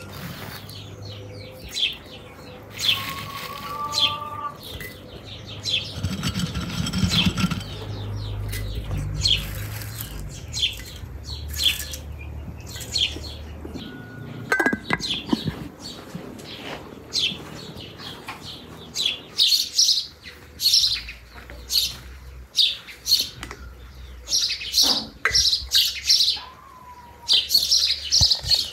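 Small songbirds chirping in short, quick calls, sparse at first and then dense and loud over the second half.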